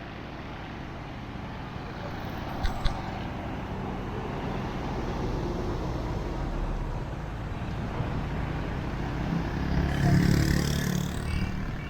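Busy street traffic: a steady din of passing vehicles, with two sharp clicks about three seconds in and a louder vehicle engine going by near the end.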